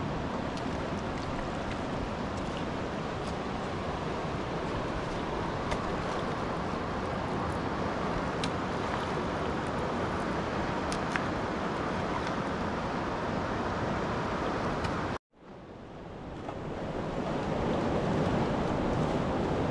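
Steady rushing noise with a few faint clicks. It cuts out abruptly about fifteen seconds in and then fades back up.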